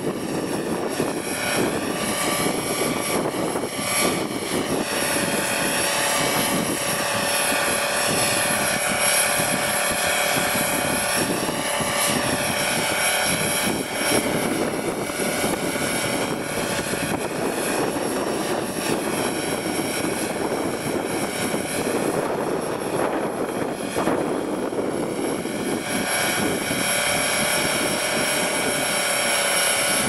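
Radio-controlled model helicopter in flight: its motor and rotors give a steady whine that rises and falls a little in pitch as it manoeuvres, with strong wind rumbling over the microphone.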